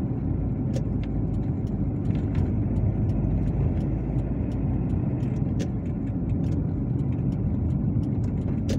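Car engine and tyre noise heard from inside the cabin, a steady low rumble as the car climbs uphill under load. A few light clicks sound here and there.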